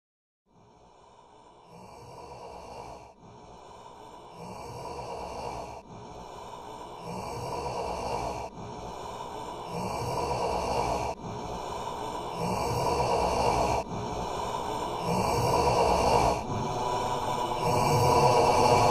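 A Halloween spooky-breathing sound effect: slow breaths in and out, each about a second and a half long, growing steadily louder throughout.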